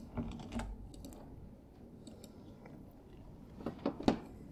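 A few soft clicks and knocks over quiet room tone: two muffled knocks near the start and a short cluster of sharper clicks near the end, the last one the loudest.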